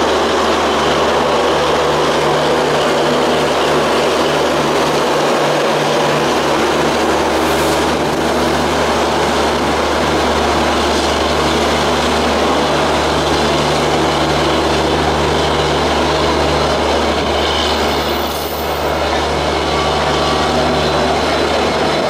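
Coaches of the arriving Duronto Express rolling slowly past, a steady rumble of wheels on rail, over the steady low hum of a diesel locomotive.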